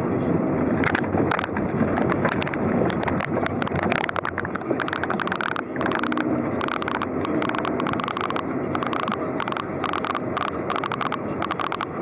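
A car driving slowly along a street: steady engine and road noise with rapid crackling clicks. The clicks grow thicker in the second half, as the car runs onto a wet road.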